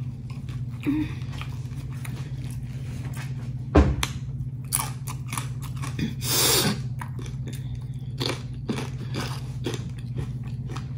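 A person crunching and chewing freshly fried, seasoned tortilla chips, with repeated irregular crisp crunches over a steady low hum.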